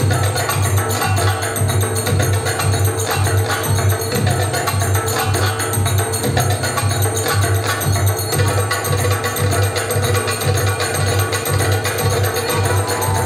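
Belly dance music with a steady percussion beat.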